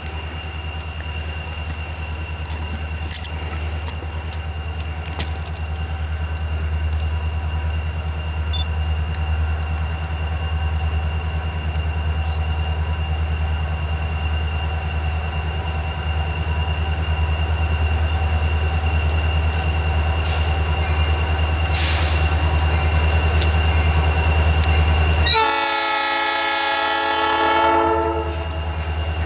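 Norfolk Southern SD40-2 diesel locomotive approaching, its low engine rumble growing slowly louder. About three-quarters of the way through, its air horn sounds one long blast of about three seconds.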